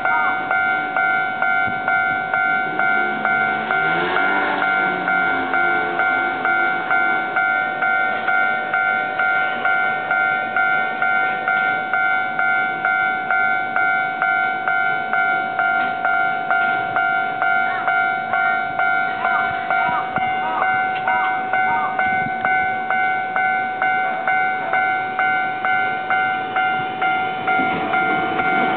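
Japanese railway level crossing warning bell ringing, a steady two-tone clang repeating about twice a second. A train's running noise rises near the end.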